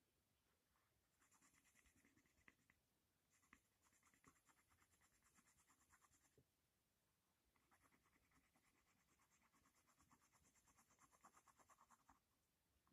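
A coloured pencil shading on paper in quick back-and-forth strokes, faint and scratchy, in three bouts with short pauses about three and seven seconds in.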